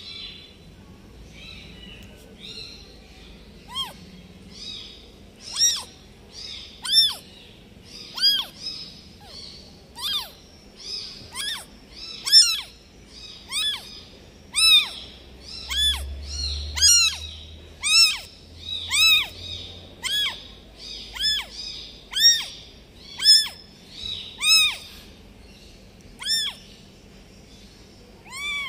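Newborn kitten meowing over and over, short thin cries that rise and fall in pitch, about one a second after a sparser start: the crying of a newborn kitten left without its mother.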